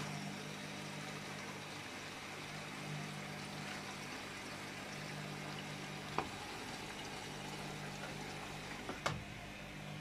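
Water rushing into a Luxor WM 1042 front-loading washing machine through its detergent drawer as the machine fills at the start of a cotton wash, with a steady low hum underneath. Two short sharp clicks come about six and nine seconds in.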